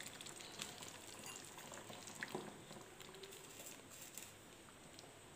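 Tapioca kurma simmering faintly in a pan, a soft bubbling with a few light clicks.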